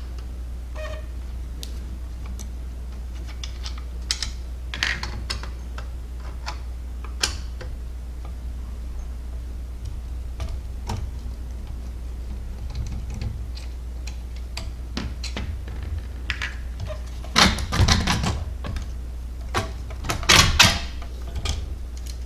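Scattered clicks and taps of a screwdriver working screws out of a 3D-printed plastic clock frame, then louder knocks of the plastic frame parts being pulled apart and set down near the end, over a steady low hum.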